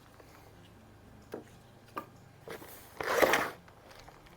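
Cardboard box and packing being handled as an air rifle is pulled out: a few light knocks, then a loud, short rustling scrape about three seconds in.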